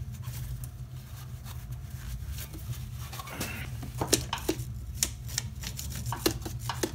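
Wire brush scrubbing grit and grime out of the threads of an old brake part: a run of irregular short scratchy scrapes and clicks over a steady low hum.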